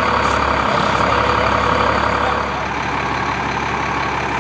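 Fire truck's diesel engine running steadily at a raised idle, a loud continuous drone that eases slightly about two and a half seconds in.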